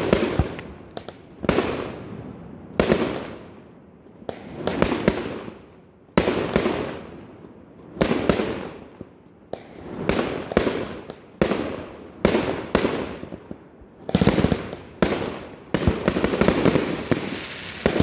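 Fireworks bursting one after another, each a sharp bang followed by a fading rumble, with the bursts coming thicker and faster near the end.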